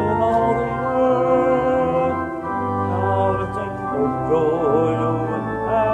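Organ playing a hymn in sustained chords, with voices singing along.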